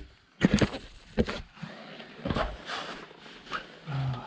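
A heavy 20-inch wheel with a studded winter tyre being worked onto the car's hub: a series of irregular scrapes and knocks, with a short grunt of effort near the end.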